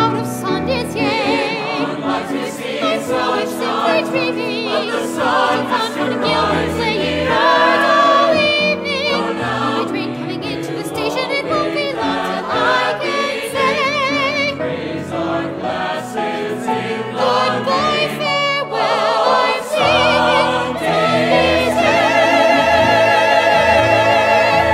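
A musical-theatre ensemble singing in chorus with vibrato, building to a long held chord near the end.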